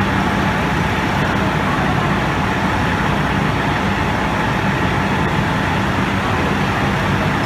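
Steady mechanical hum over a rushing noise, running unchanged at an even level.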